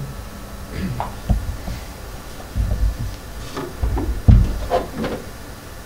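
A few dull, low thumps and knocks, the loudest a sharp one about four seconds in, over a steady hiss, with brief faint vocal sounds between them.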